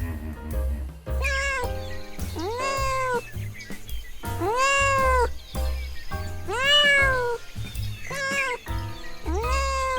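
A cat meowing repeatedly, about six drawn-out meows that rise and then fall in pitch, over background music.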